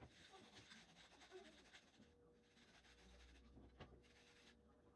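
Aerosol spray paint can hissing faintly in short bursts of a second or two, with brief pauses about two seconds in and near the end, and a light knock of the parts being handled.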